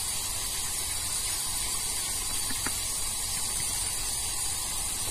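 Steady outdoor background hiss at an even level, with no distinct events apart from one faint tick about two and a half seconds in.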